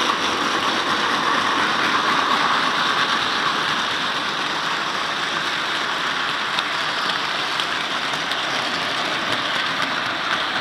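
Model railway train running along the track: a steady whirring rumble of small wheels on rails and the motor, with a few faint clicks over the pointwork.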